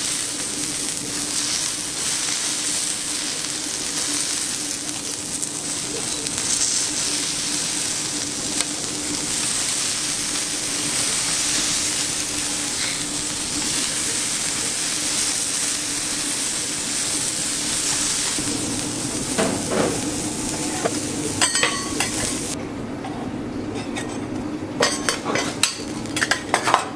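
Beef cubes sizzling on a hot teppanyaki griddle, a steady hiss, with a knife, carving fork and metal spatulas scraping and clinking on the griddle plate. The sizzle drops away about 22 seconds in, leaving a run of sharp metal clicks and taps near the end.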